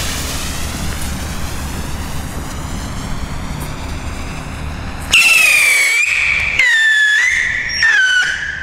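Three-stage whistle rocket: the fuse hisses steadily, then about five seconds in three loud whistles follow one after another, each falling in pitch, one for each stage.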